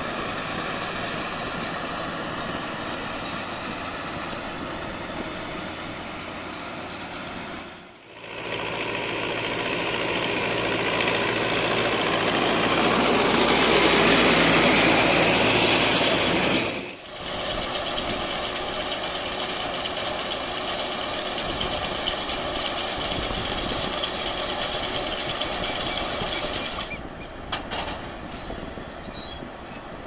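Massey Ferguson 4299 tractor's diesel engine running steadily under load while pulling a John Deere 592 round baler picking up and baling alfalfa. It grows louder through the middle stretch as the baler passes close, and the sound drops out briefly twice at cuts.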